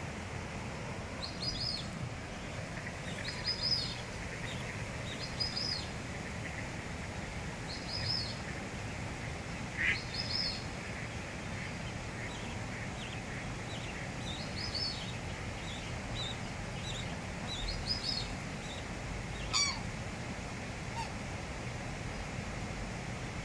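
Black swan cygnets peeping: short, high-pitched calls every couple of seconds over a steady hiss, with one sharp click near the end.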